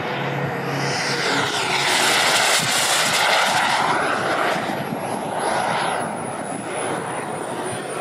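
Twin kerosene turbine engines of a large-scale F/A-18 Hornet model jet in flight: a jet rush with a high turbine whine that shifts in pitch as the jet passes. It is loudest about two to three seconds in, swells again briefly before six seconds, then eases off.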